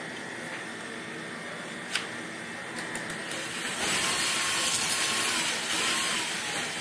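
Cordless drill spinning an apple against a peeling blade: from about four seconds in it runs louder, a faint motor whine rising and falling under the rasp of the peel being cut off. Before that a steady background hum, with a single click about two seconds in.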